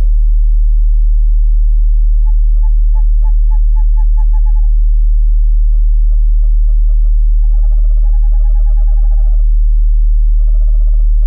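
Owl calls: a run of short hooting notes at about four a second, a few scattered notes, then a rapid run of calls about two-thirds of the way in. A steady, deep low tone sounds underneath throughout.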